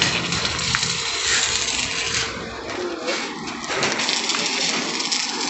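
Stick-welding arc burning on a galvanized steel pipe: a steady crackling, sizzling hiss.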